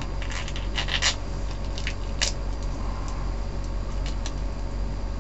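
Plastic packaging of sliced ham crinkling and crackling in short bursts of rustle as it is pulled open, over the steady low hum of the truck's idling engine.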